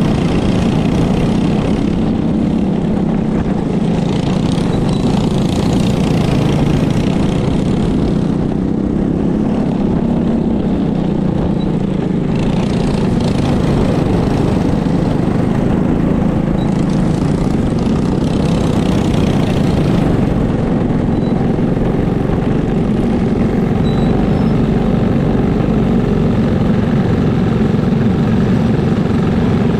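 Go-kart engine running at racing speed, heard from a camera mounted on a kart, its note rising and falling every few seconds as the throttle comes on and off through the turns.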